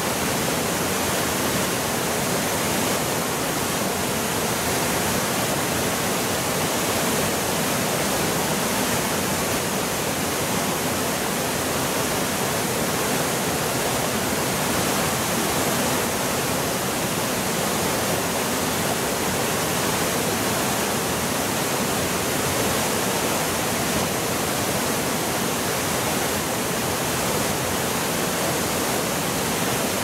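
Waterfall and rocky river rapids running: a steady, unbroken rush of water.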